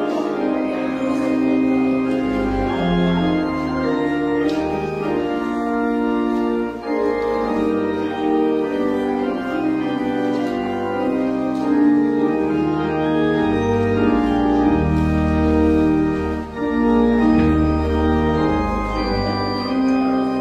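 Church organ playing a slow piece in held chords over low bass notes.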